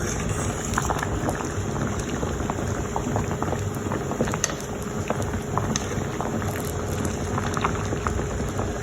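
A pot of yellow yam, pumpkin, dumplings and green banana boiling on the stove: a steady bubbling rush with scattered small pops.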